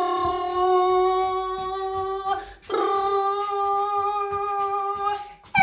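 A woman humming two long, steady notes, each about two and a half seconds, with a short break between them: a voice imitating a bus engine while she mimes driving.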